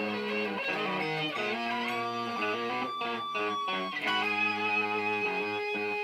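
Fernandes electric guitar played through a Laney amplifier stack, a run of picked notes with one high note held for about two seconds mid-way.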